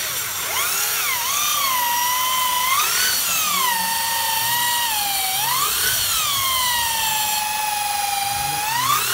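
Electric hand drill whining as it bores into a wooden chopping board. Its pitch rises and dips several times as the load on the bit changes.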